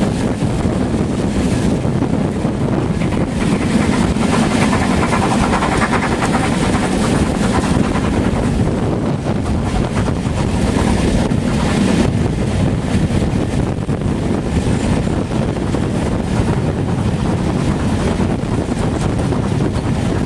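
The running noise of a steam-hauled passenger train, heard from a carriage window, under a loud steady rush of wind buffeting the microphone.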